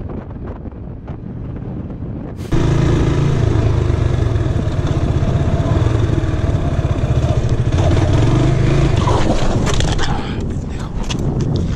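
Wind rushing over the microphone of a moving motorcycle, then an abrupt switch to a motorcycle engine running loud and steady close to the microphone. Near the end the engine sound drops and a few sharp knocks and scrapes follow.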